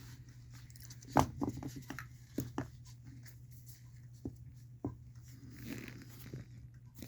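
Scattered light clicks and knocks from a removed piston and connecting rod being handled, over a steady low hum.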